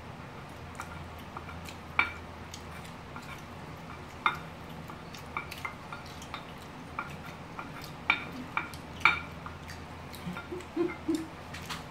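Metal chopsticks and a plastic spoon clinking and scraping against ceramic plates while eating. The clicks are scattered and irregular, with a few louder clinks about two, four, eight and nine seconds in, over a low steady hum.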